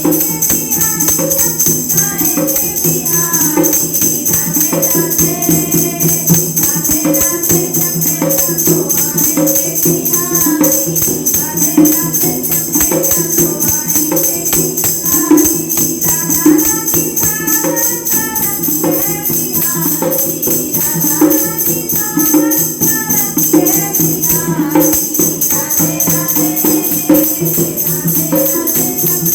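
Devotional Hindu bhajan music: women singing a Krishna hymn over a steady drone, with jingling percussion keeping an even beat.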